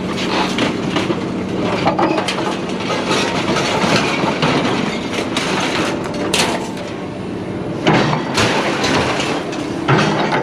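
Vehicle engine running steadily, with scattered clanks and knocks of scrap metal, the sharpest strikes about six and eight seconds in.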